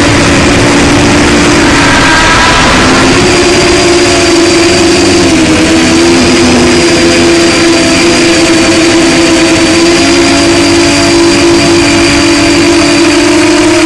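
Racerstar BR2507S brushless motors spinning HQ 7x4x3 three-blade props on a 7-inch FPV quadcopter, heard from the onboard camera: a loud, steady whine over a rush of air noise. The pitch dips and then climbs about three seconds in as the throttle changes.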